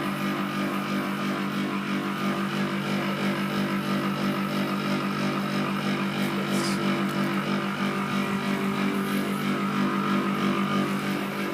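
Tadiran air conditioner's outdoor unit running: a steady hum with a higher whine over it, a few minutes at most after switching on. The owner says it has lately been sounding weird and noisy, cause unknown.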